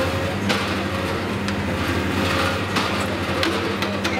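Hitachi Zaxis ZX470-3 high-reach demolition excavator's diesel engine running steadily under hydraulic load. Several sharp knocks and clanks from the demolition tool and debris sound over it.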